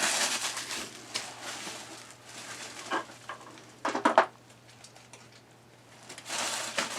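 Plastic packaging crinkling and rustling as the Fantastic Fan upgrade kit's parts are unpacked, with a short pitched squeak about four seconds in.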